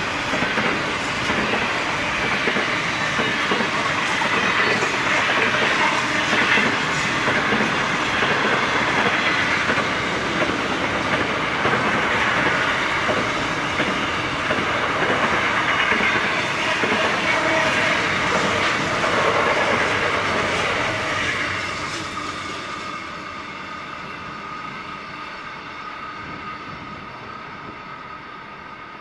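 Loaded container wagons of a freight train rolling past close by, with a steady clickety-clack of wheels over the rail joints. About 22 seconds in, the end of the train passes, and the sound drops and fades as the train moves away.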